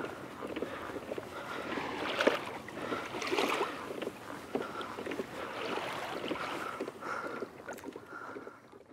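Seawater lapping and slapping against a kayak hull on a gentle swell, a steady wash broken by many small sharp splashes.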